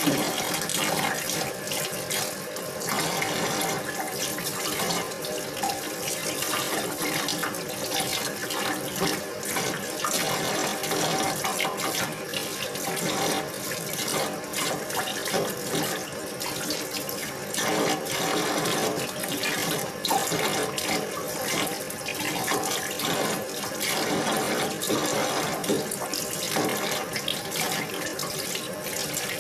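Tap water running steadily into a sink while green onions are rinsed by hand, with irregular splashing and the rustle of wet stalks being handled.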